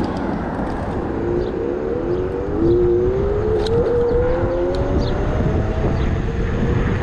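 Electric scooter's hub motor whining as it speeds up, the pitch rising steadily from about a second in and levelling off near the end, over low wind and road rumble.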